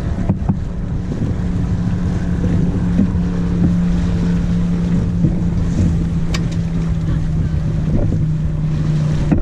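Wind buffeting the microphone on a boat on the water, with a steady boat motor hum that sinks slightly in pitch and stops near the end. There is a single sharp click about six seconds in.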